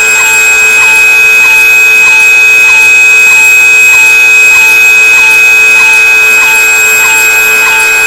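Blower motor running steadily with a whine of several constant tones and a regular tick about twice a second.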